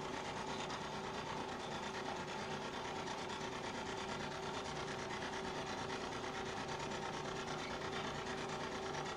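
A steady, even hiss with a faint steady hum underneath, unchanging throughout.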